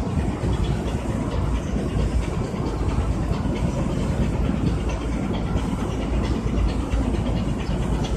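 Steady low rumble of a boat's engine running underway, with a faint rapid clatter over it.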